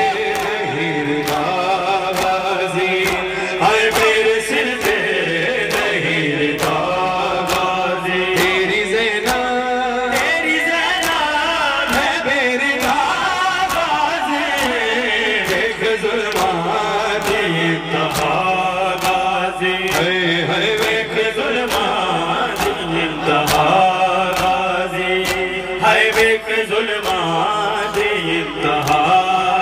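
A noha sung live by a male lead voice through a microphone and loudspeakers, with a chorus of men chanting along. Sharp slaps recur throughout at a rough beat: the mourners' matam, beating their chests in time with the lament.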